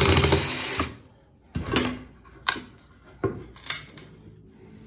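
12-volt cordless drill boring into a wooden board, running steadily and stopping about a second in. A few short, sharp knocks follow.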